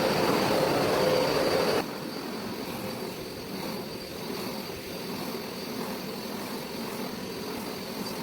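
Hoover SmartWash carpet deep cleaner running, a steady motor and suction hum. It drops abruptly to a quieter level about two seconds in and runs on evenly.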